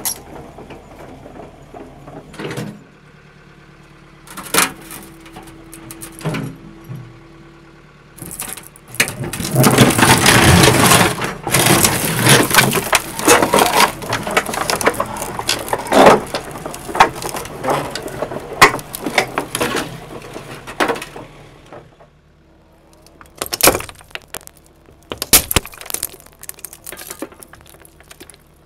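Steel excavator track rolling over and crushing small hard coloured balls. A few single sharp cracks come in the first seconds, then a loud, dense run of cracking and crunching lasts about twelve seconds, and a few more cracks follow near the end. The machine's engine hums low underneath.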